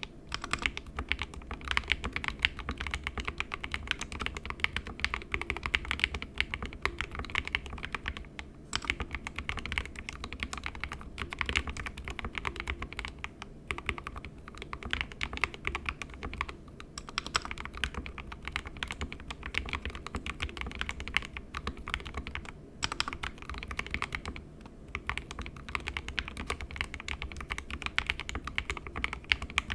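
Continuous typing on an SK61 mechanical keyboard with lubed 62 g Gateron optical red linear switches in an aluminium plate and stock keycaps, the board sitting on a deskmat. A dense run of keystrokes, broken by brief pauses a few times.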